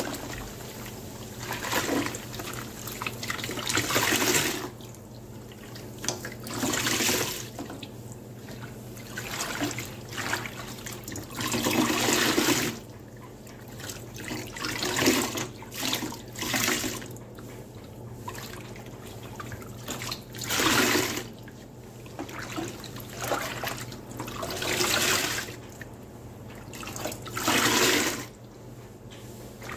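A wet, soapy sponge squeezed by hand over and over, water pouring and splattering out with each squeeze, about every two to three seconds.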